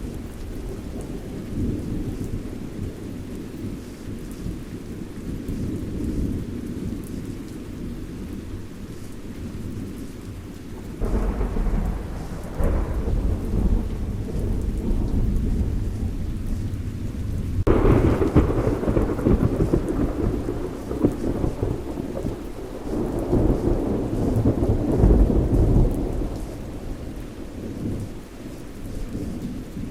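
Thunderstorm: steady rain under a constant low rumble of thunder. A sudden thunderclap comes about a third of the way in, and a louder one just past halfway, each rolling on for several seconds, with another swell of rumble after it.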